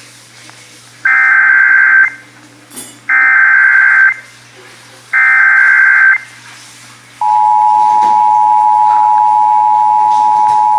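Emergency Alert System activation: three one-second bursts of SAME header data about a second apart, then the steady two-tone EAS attention signal, which starts about seven seconds in and holds.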